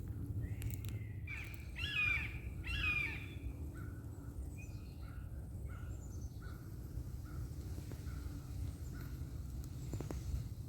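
A crow cawing: two or three loud, harsh calls about two seconds in, followed by a run of fainter short notes repeated about twice a second, over a steady low rumble.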